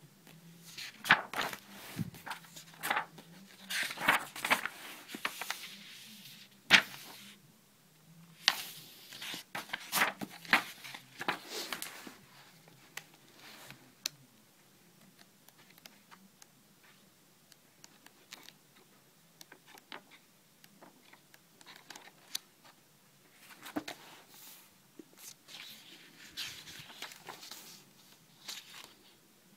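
Sheets of paper and sketchbook pages being handled and turned over: rustling and swishing with sharp snaps of paper, busiest in the first twelve seconds or so, then sparser.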